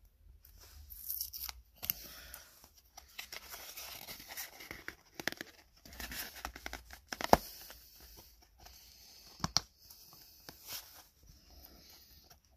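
Tape being torn and peeled off a grey cardboard package by hand, with irregular rustling and scraping of the card and a few sharp cracks, the loudest about seven seconds in.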